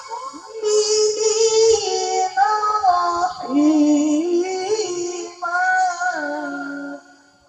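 A male qari reciting the Quran in melodic tilawah style into a microphone. He sings one long ornamented phrase in a high register, with held notes that slide and waver in pitch, and the phrase ends about seven seconds in.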